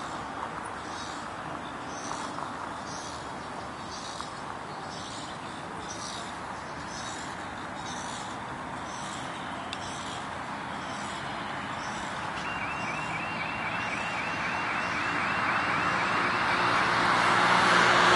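Road traffic on a nearby road: a steady hiss of tyres and engines that swells as a vehicle comes closer near the end. A quick run of high chirps partway through.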